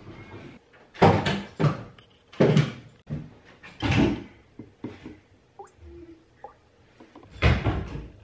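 Four loud clunks and knocks of things being handled in a kitchen, the first three about a second and a half apart, the loudest near the end, with a few light clicks between them.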